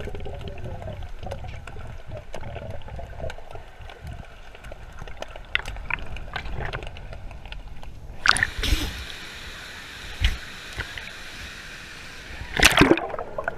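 River water sloshing and gurgling, first low and muffled, then with a brighter rushing hiss from about eight seconds in. A few sharp knocks and splashes come in the second half, the loudest near the end.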